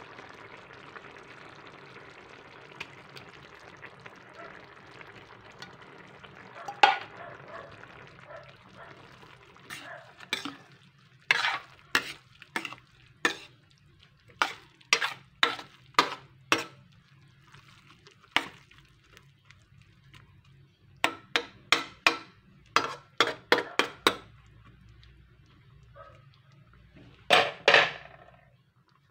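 A metal spoon stirring rice and water in a stainless steel pan, clinking and scraping against the pan in quick runs of sharp knocks. For the first several seconds there is a steady hiss from the simmering liquid.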